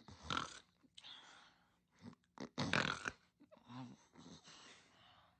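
Snoring: a sleeper's noisy breaths in and out at an uneven pace, the loudest a long snore around two and a half to three seconds in, with a short throaty rattle just after it.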